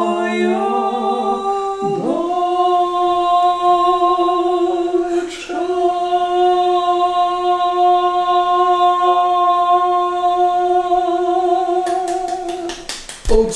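A man singing unaccompanied, holding one long high note for about ten seconds with a brief break about five seconds in. Hand clapping starts near the end as the note stops.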